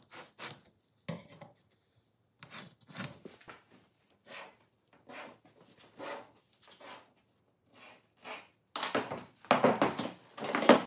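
Pencil scratching on mahogany plywood in short strokes as lines are drawn along a square and an aluminium straightedge. Near the end come louder knocks and rubbing as the straightedge and its clamp are handled.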